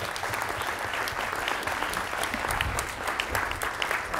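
Audience applauding: many people clapping in dense, steady applause.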